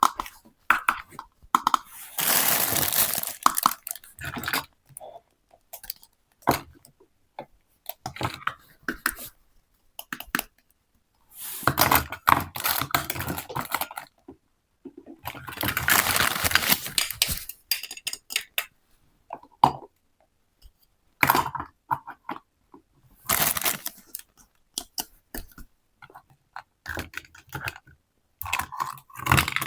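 Plastic toy kitchen pieces and their packaging being handled: irregular bursts of crinkling, tearing and light clattering, with short pauses between them.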